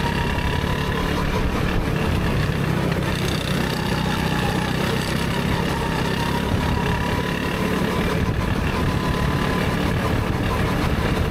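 Go-kart engine running under way, heard from on board the kart: a steady drone whose pitch drifts gently up and down with the throttle.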